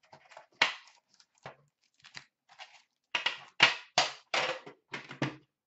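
Wrappers of 2016-17 Upper Deck hockey card packs crinkling as the packs are pulled from the box and stacked on a counter: a series of short crackles, busiest in the second half.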